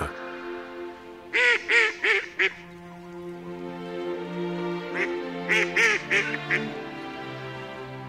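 Slow, sustained background music with waterfowl calling over it: a quick run of four calls about a second and a half in, and another run of several calls from about five seconds in.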